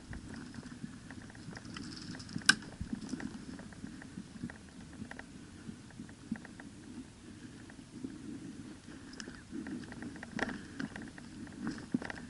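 Irregular rustling and crackling of close movement, footsteps and handled gear, with one sharp click about two and a half seconds in and a few more near the end.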